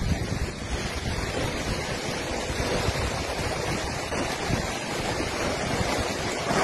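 Steady rushing noise with an uneven low rumble beneath it.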